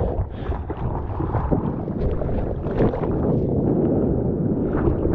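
Ocean water sloshing and splashing right against the microphone at water level, with wind buffeting the microphone.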